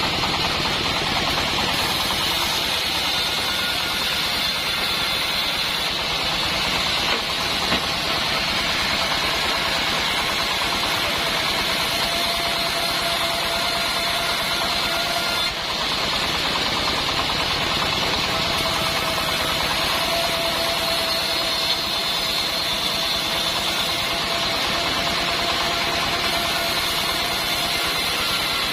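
Band sawmill running steadily: a continuous machine noise with faint held whining tones over it.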